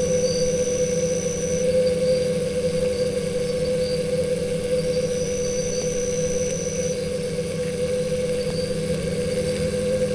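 Stingless bees buzzing at their nest hole, a steady drone. A thin high whistle sounds twice, for about two seconds each time.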